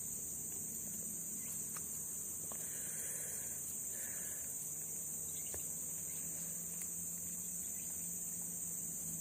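Steady, unbroken high-pitched insect chorus of crickets or cicadas, with a few faint clicks.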